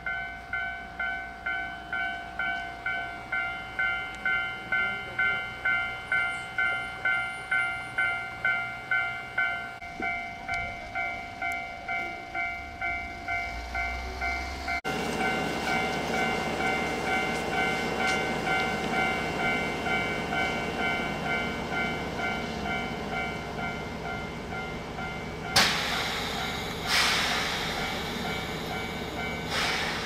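Level-crossing warning bell ringing, about two electronic dings a second. About halfway in, a steady rush from the stopped 8500 series electric train joins it, as its pantograph is raised for a brake air-pressure check. Two short, loud hisses come near the end.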